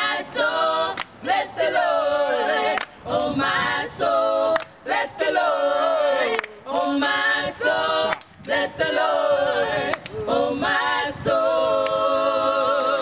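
A small group of singers singing a worship song a cappella in harmony, phrase by phrase with short breaths between, ending on a long held note in the last couple of seconds.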